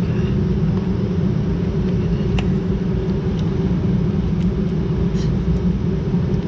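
Steady low rumble, with a few faint clicks.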